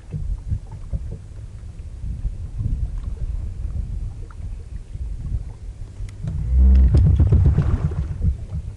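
Low, steady rumble aboard a small fishing boat, mixed with wind on the microphone and a few faint clicks; the rumble swells much louder about six and a half seconds in and fades back near the end.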